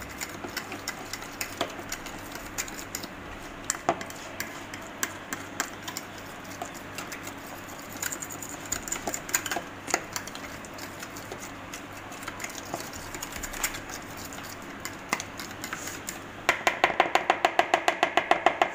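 A fork stirring yogurt and ground spices in a plastic bowl, with scattered clicks and scrapes against the bowl. Near the end it switches to fast, even beating, about ten taps a second.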